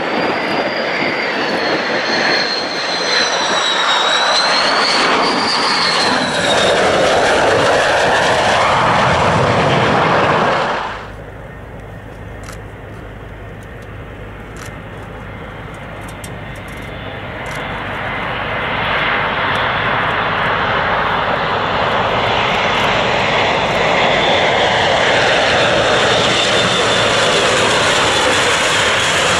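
A fighter jet's engines during a display pass, with a high whine that wavers up and down in pitch; the sound cuts off abruptly about 11 seconds in. Then an Airbus A400M Atlas's four turboprop engines, quieter at first and growing steadily louder as the aircraft approaches.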